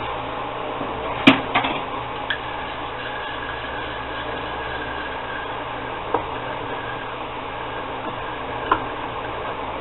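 Steady hum of a small bench machine, with sharp clicks and knocks as it is handled: three close together about a second in, then two more, one after the middle and one near the end. A faint high thin tone sounds for a few seconds in the middle.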